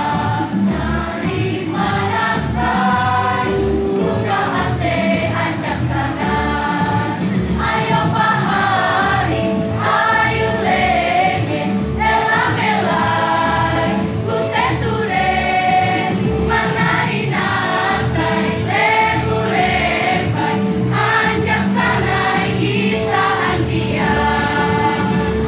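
High-school choir singing in parts with electronic keyboard accompaniment.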